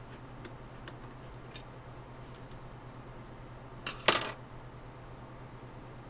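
A small screwdriver turning screws in a laptop's bottom memory door, with faint light clicks, then a sharp double clack about four seconds in as the door or tool is handled.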